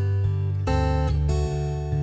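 Instrumental background music with a new chord struck about every two-thirds of a second.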